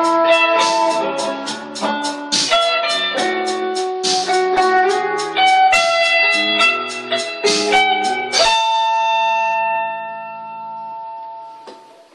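Instrumental music: a melody of pitched notes over a regular drum beat, which stops about eight seconds in, leaving a held final chord that rings and fades away.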